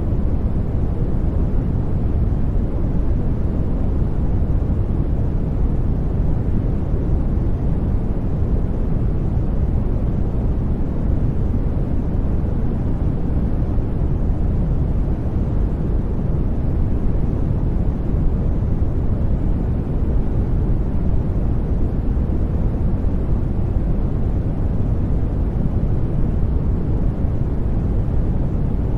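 Steady, unchanging noise track sold as white noise, deep in tone with most of its weight in the low end, heard as a soft even rumble-hiss with no events in it.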